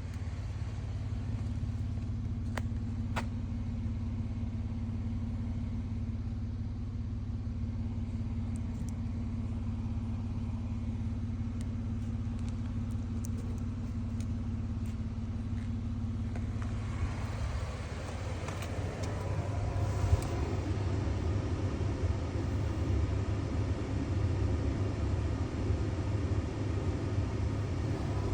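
A motor vehicle's engine running with a steady low rumble. A steady hum rides over it until about 17 seconds in, and after that the sound becomes busier and noisier.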